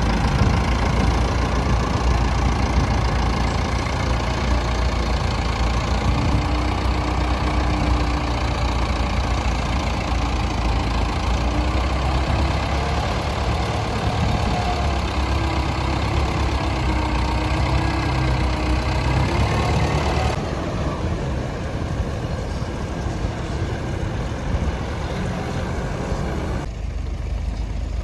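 Tractor engine running steadily, with a deep low rumble; the sound changes abruptly about two-thirds of the way through and again near the end.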